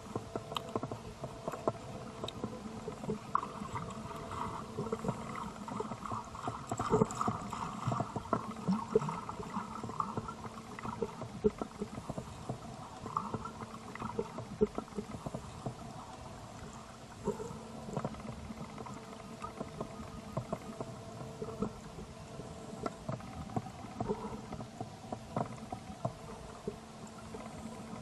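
Underwater ambience picked up by a camera underwater: a steady low hum with frequent short crackling clicks and water movement.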